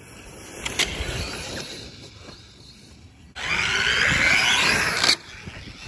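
1/10-scale Losi Baja Rey RC truck driving on grass: its electric motor and tyres are faint while it is far off. It turns loud for under two seconds as it passes close, starting and stopping abruptly.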